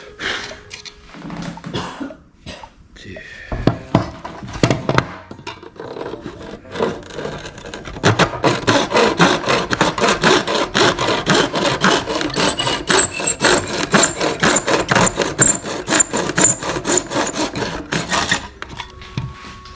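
Hand tool sawing or rasping back and forth to cut about 2.7 mm off a plastic battery adapter so it will fit a 40V impact driver. The strokes are uneven at first, then from about eight seconds in come steady and quick, about four a second.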